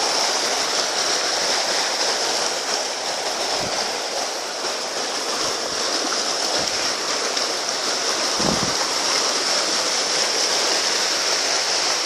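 Mountain river rushing and splashing over boulders in a steady flow of white water.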